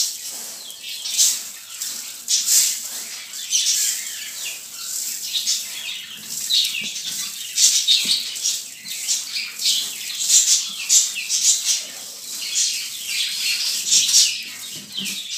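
Dry mixed grain being poured and swept by hand off a metal tray into a plastic bucket. The seeds hiss and rattle in repeated uneven bursts.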